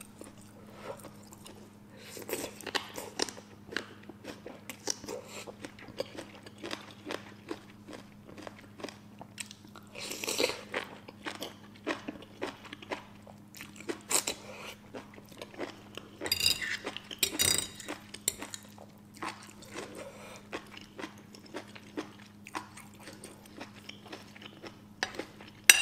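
Close-up eating sounds of a person slurping and chewing instant noodles: wet mouth noises and short clicks, with louder slurps about ten seconds in and twice around sixteen to seventeen seconds. A faint steady low hum runs underneath.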